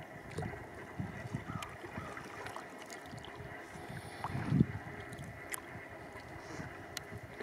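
Water splashing and lapping around a kayak as it is paddled, with scattered small drips and clicks. There is a louder low thump about four and a half seconds in.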